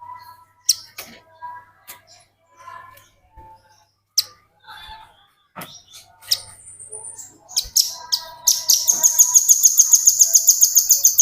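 Velvet-fronted nuthatch calling: scattered sharp, high chirps, then, about three quarters of the way in, a loud, fast trill of evenly repeated high notes, about ten a second, lasting some three seconds.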